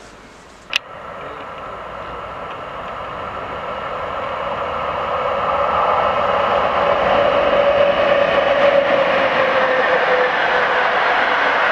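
Passenger train hauled by an electric locomotive, approaching and passing at speed. A sharp click comes about a second in, then the rumble of wheels on rail grows steadily louder over several seconds and stays loud, with a steady whine that sinks slightly in pitch as the coaches go by.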